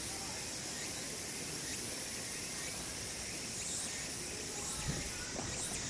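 Steady, high-pitched drone of insects in outdoor ambience, with a few low rumbles near the end.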